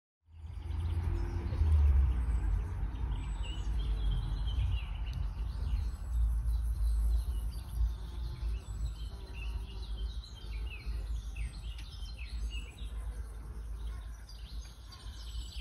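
Small birds chirping and singing in short, repeated phrases, over a low, uneven rumble.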